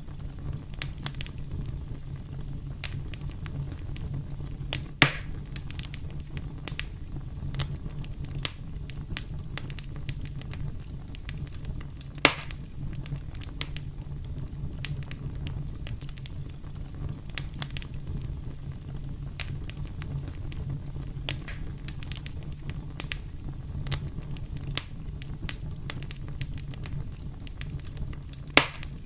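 Campfire crackling steadily over a low rumble of burning, with many small snaps. Three louder pops stand out, about 5 seconds in, about 12 seconds in and near the end.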